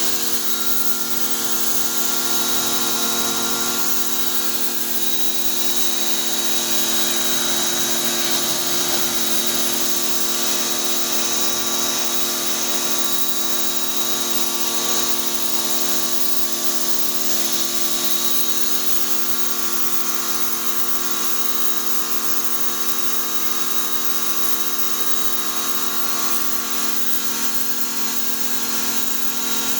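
Pressure washer running continuously, a steady motor hum under the loud hiss of the water jet spraying.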